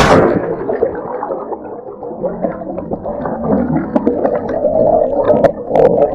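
Underwater sound as a diver and the camera go below the surface: the sound turns suddenly muffled, with bubbling and gurgling water as bubbles stream past the diver's mask and snorkel, and a few sharp clicks near the end.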